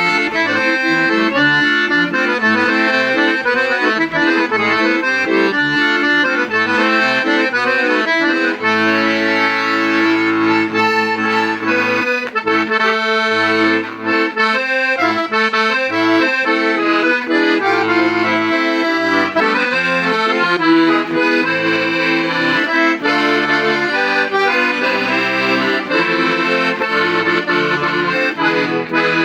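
Hohner Verdi III piano accordion being played: a tune of held reedy notes on the treble side over bass notes that step in a short rhythm at first and are held longer after about eight seconds.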